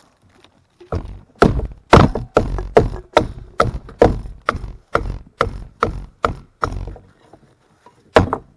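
Wood being chopped: a fast run of sharp blows, about three a second for some six seconds, then two more near the end.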